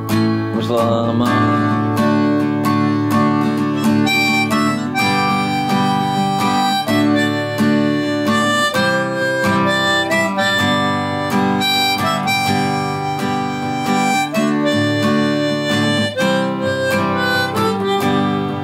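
Instrumental break of a folk song: a harmonica plays the melody in held notes over strummed acoustic guitar.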